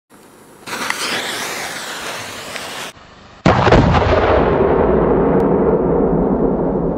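A lit firework fuse hisses steadily for about two seconds. After a break, a 200 mm firework shell's lift charge fires from its mortar about three and a half seconds in, a sudden heavy boom that, slowed down, stretches into a long low rumble fading slowly.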